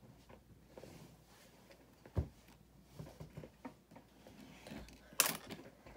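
Small plastic LEGO pieces clicking and knocking as they are handled and snapped together, with a low thump about two seconds in and a brief louder burst of noise near the end.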